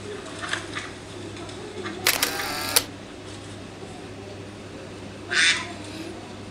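A recorded duck quack played through the phone's speaker by Google's augmented-reality mallard about two seconds in, then the phone camera's shutter sound about five seconds in, over a steady low hum.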